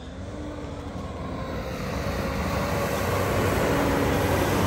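A 4x4 off-road vehicle's engine running with a dense rumble that grows steadily louder throughout.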